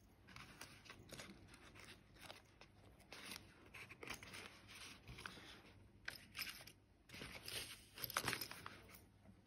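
Faint handling noise: metal spoon lures and their hooks clicking and scraping as they are pushed into the foam slots of a lure case, with a louder bout of scraping and rustling near the end.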